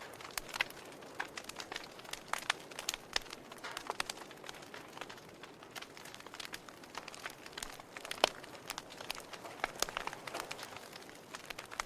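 Wood fire crackling in a fireplace: irregular sharp pops and snaps over a soft hiss, with one louder pop about eight seconds in.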